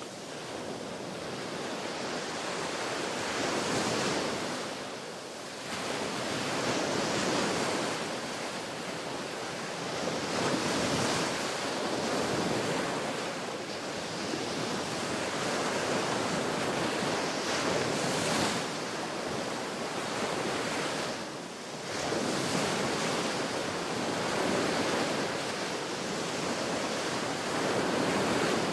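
Ocean waves breaking and washing onto a beach, the surf swelling and easing every few seconds with no pause.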